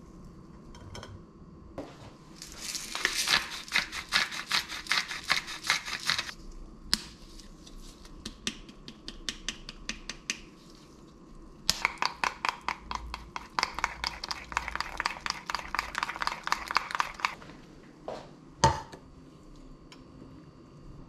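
A metal spoon stirring and beating yogurt sauce in a small stainless steel bowl: two long spells of quick clinking strokes against the bowl, with a few scattered taps between them. A single sharp knock comes near the end.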